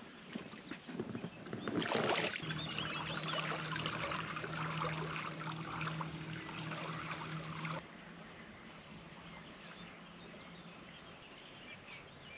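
Inflatable boat pulling away from the bank across the water: splashing, then a steady low hum with rushing water from about two seconds in, which cuts off sharply about eight seconds in. Faint ambient noise with light chirps remains.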